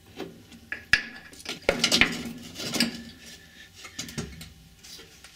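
Metal clinking and knocking as the carburettor is pulled off a 1976 Piaggio Ape 400R's engine and lifted out. There are a few sharp clicks, the loudest about one and two seconds in.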